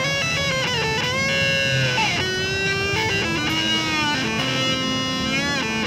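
Electric guitar played through an EarthQuaker Devices Park Fuzz Sound pedal with the fuzz control turned all the way up: sustained, heavily fuzzed lead notes that bend and slide in pitch.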